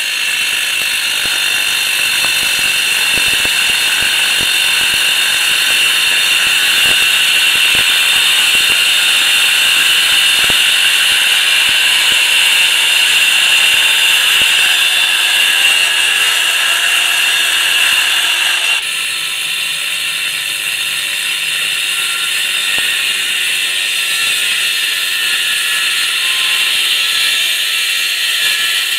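Makita XAG12 36-volt 7-inch cordless angle grinder with a segmented diamond blade cutting into concrete block: a loud, steady grinding whine. About 19 seconds in the sound changes abruptly and becomes a little quieter.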